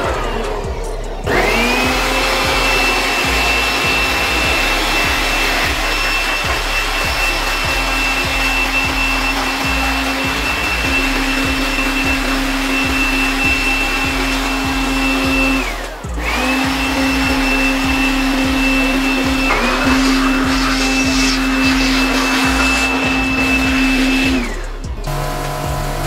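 Handheld electric air blower running, blowing dust out of a split air conditioner's indoor unit. The motor spins up with a rising whine about a second in and runs steadily, is switched off and straight back on about two-thirds of the way through, and stops just before the end.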